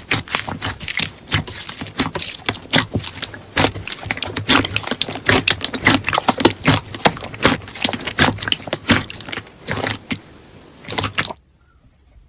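Slime being squeezed and pressed by hand, giving a dense run of crackling, popping clicks typical of crunchy slime. It stops abruptly about eleven seconds in.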